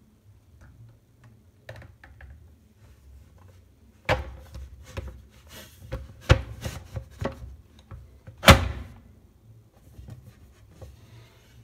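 Plastic toilet seat being handled on its hinges: a run of knocks and clunks starting about four seconds in, with one loudest clunk near the end.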